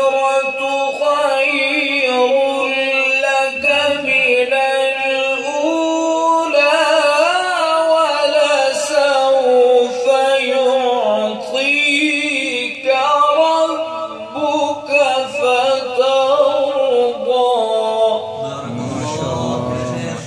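A male qari reciting the Quran in melodic tajweed style into a handheld microphone, with long held notes that waver and curl in ornaments between breaths.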